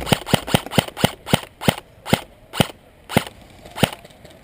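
Airsoft gun firing a string of single shots, sharp snapping cracks coming about four or five a second at first and then further apart, the last one near the end.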